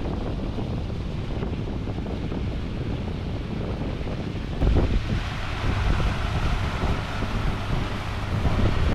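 Volvo Penta D2-40 marine diesel running flat out at full throttle, mixed with wind buffeting the microphone; the sound gets louder about halfway through.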